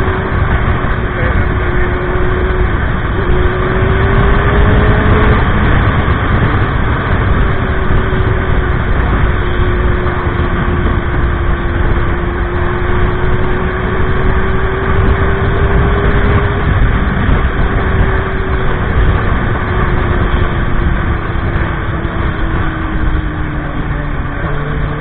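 Motorcycle engine running while riding, with a steady rumble of wind and road noise over the microphone. The engine note climbs for the first few seconds, dips, climbs slowly again to a peak past the middle, then gradually falls near the end as the bike changes speed.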